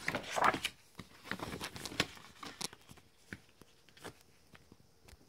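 Paper and card rustling as a vinyl record in its paper inner sleeve and a large photo insert are handled, busiest in the first couple of seconds, then only a few faint taps and ticks.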